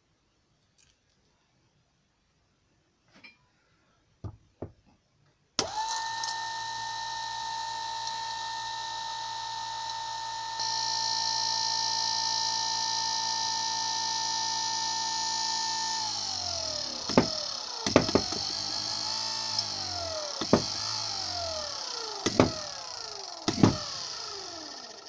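Small brushed DC scooter motor run off a small sealed lead-acid battery by holding its leads to the terminals. It starts abruptly with a steady high whine and brush hiss, then winds down when the power is cut. After that it gets several short bursts, each starting with a sharp contact click as a lead touches the terminal, the whine briefly rising then falling away.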